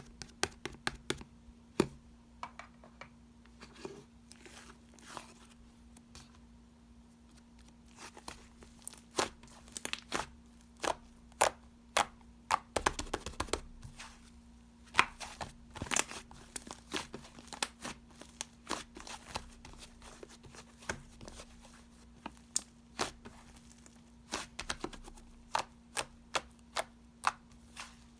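Irregular crackling and sharp clicks, like something crinkly being handled or squeezed up close, over a faint steady hum.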